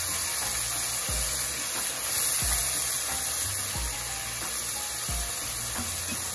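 Background music with a slow, steady beat, about one low thump every 1.3 seconds, over the hiss of oil and spice paste sizzling in a pan as tomato soup is poured in.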